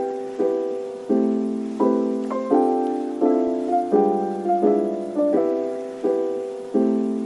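Background music: soft piano or electric-piano chords, struck about every three quarters of a second and each left to fade.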